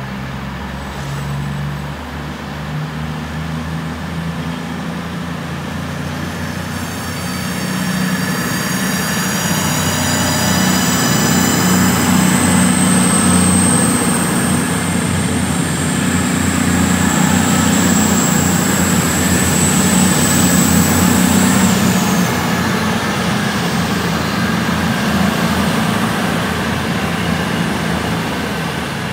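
CrossCountry Voyager diesel-electric multiple unit passing close, its underfloor diesel engines running with a low hum. From several seconds in, a high whine rises in pitch and then holds steady. The whine falls away a little past the middle, and the train noise grows louder as it passes, then eases off.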